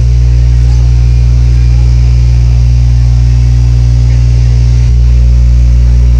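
Large sound-system subwoofers playing a steady, very loud, deep bass tone during a sound check, overloading the recording. The low end changes slightly about five seconds in.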